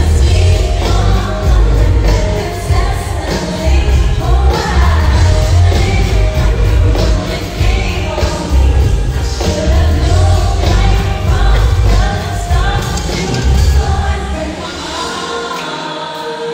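Live pop concert heard through a phone in the crowd: a singer with a backing band over a heavy bass beat. Near the end the bass drops away, leaving thinner music.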